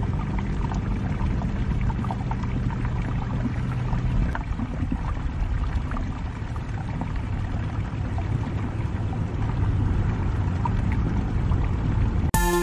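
Seashore ambience: a steady low rumble of wind on the microphone with small waves lapping and splashing among the rocks. A low steady hum underlies it and stops about four seconds in. Music starts right at the end.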